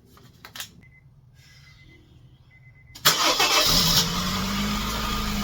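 A couple of faint clicks, then about three seconds in the 2013 Honda Fit's four-cylinder engine cranks, catches with a loud flare, and settles into a steady, smooth idle. It is running right on its new spark plugs after a stripped spark plug hole was repaired.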